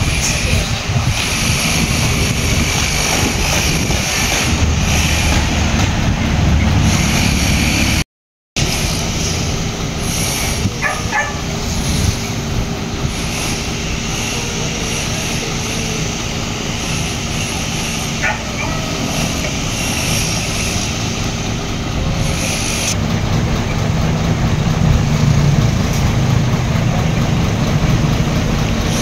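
Truck diesel engine idling steadily.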